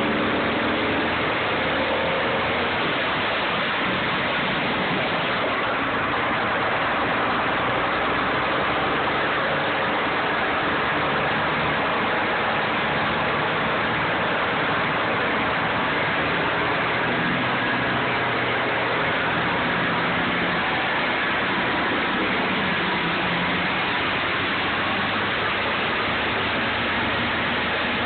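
Morbark wood chipper running steadily and loudly, its engine and machine noise unchanging throughout.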